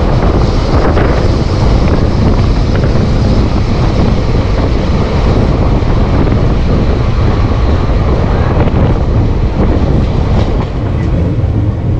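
Indian Railways ICF passenger coach under way, heard from on board: a loud, steady running rumble of wheels on the track.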